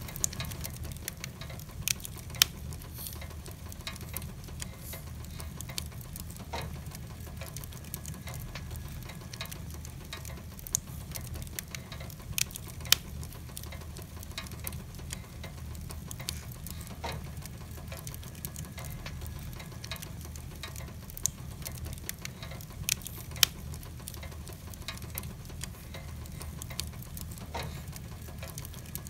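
Wood logs burning in a fireplace, crackling with sharp pops every few seconds over a steady low rush, with the sound of rain mixed in.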